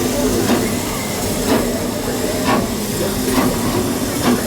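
Steam locomotive running slowly, its exhaust chuffing about once a second over a steady hiss of steam and a low, even hum.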